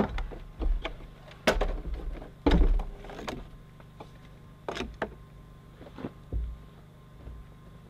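Irregular knocks and clunks on a wooden deck as material and tools are handled and set down around a miter saw that is not running. About half a dozen sharp hits, the loudest at the start and about two and a half seconds in, thinning out after about six seconds.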